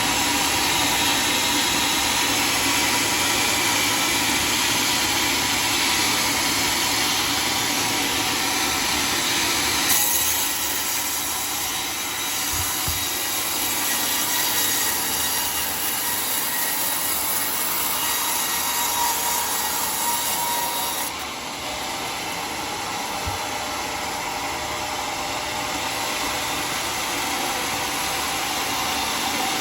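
Homemade sawmill's circular saw cutting through a teak log, a steady grinding run that changes abruptly in tone twice, about a third and two-thirds of the way through.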